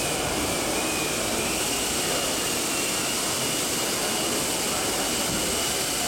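Steady, even background roar of a large exhibition hall, with a faint high whine running through it that rises slightly about a second and a half in.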